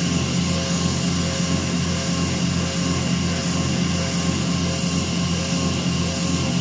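Langmuir Systems MR-1 CNC mill spindle running at 8,000 RPM, with a 3/16-inch four-flute carbide end mill cutting a hole in a steel part. It makes a steady machining drone with a low hum that pulses a few times a second, over the hiss of mist coolant spray.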